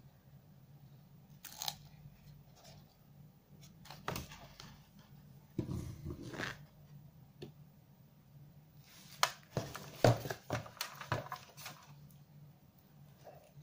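Handling noise from unpacking a set-top box: a cardboard box rustling and scraping as it is handled, with a cluster of sharp clicks and knocks about nine seconds in as the plastic receiver and its cable are taken out.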